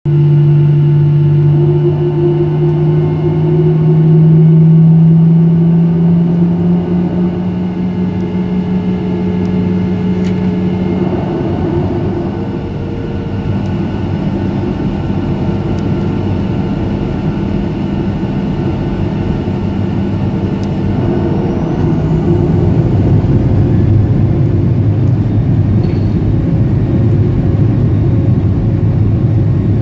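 Boeing 737-800's CFM56-7B jet engines and airframe, heard from inside the cabin over the wing as the airliner taxis on the runway. A steady low hum dominates for the first ten seconds or so, then fades into a broader rumble that grows a little louder after about twenty seconds.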